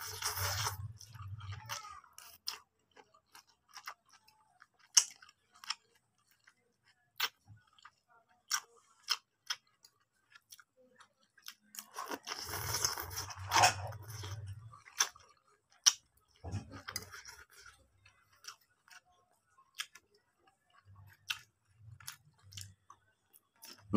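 A person slurping instant fried noodles, in a long pull at the start and again about twelve seconds in, with chewing and many short wet mouth clicks in between.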